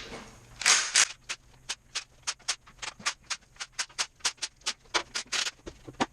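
Ratchet wrench clicking steadily, about five clicks a second, as a bolt is turned out, with a couple of louder metal scrapes near the start and near the end.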